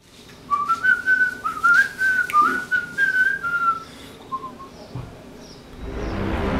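A man whistling a short tune with his lips, a run of stepped notes followed by a couple of brief ones. Music starts to swell in just before the end.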